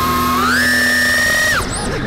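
Radio-controlled plane's motor whining as heard from the onboard camera. The pitch rises sharply about half a second in as the throttle comes up, holds, then drops away and cuts off about a second and a half in as the throttle is chopped.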